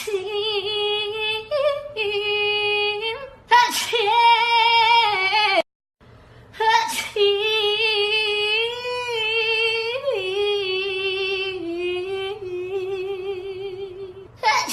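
A high female singing voice holding long notes with a wavering vibrato, each phrase starting with a short sharp noisy burst, three times in all. The sound cuts out briefly just before the middle.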